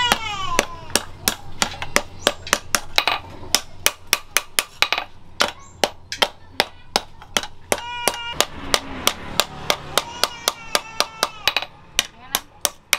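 Hand hammer forging the red-hot tang of a knife blank cut from a circular saw blade on a steel anvil: a steady run of sharp metal-on-metal blows, about three a second.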